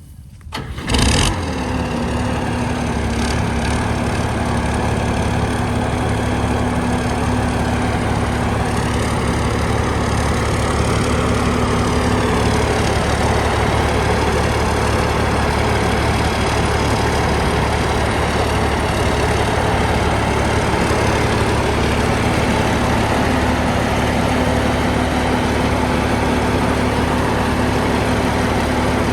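An engine comes on abruptly about a second in, then runs loud and steady at a constant speed.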